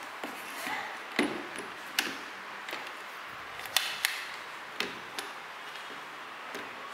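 Irregular plastic clicks and light knocks from a twist-grip throttle and its cable being handled, about nine sharp clicks spread over several seconds.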